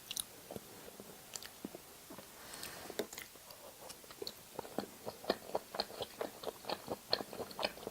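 Close-miked chewing of food: a few scattered mouth clicks, then from about four and a half seconds in a steady run of chewing clicks, roughly three a second.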